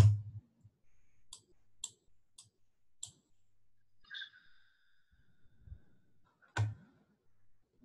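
Light clicks of a computer keyboard as a ticker symbol is typed in: four quick keystrokes about half a second apart, after a heavier keystroke at the start. A faint ringing tone sounds about four seconds in, and a knock near the end.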